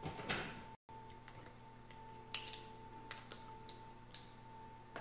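Scattered small clicks and crackles of boiled seafood shells being handled and picked apart by hand, over a faint steady hum. The sound cuts out completely for an instant just before a second in.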